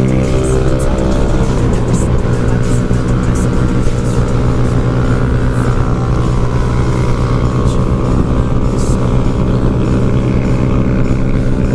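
Bored-out (63 mm) Yamaha Lagenda 110ZR engine running hard at a steady high speed, its pitch holding nearly constant, with wind rushing past the rider.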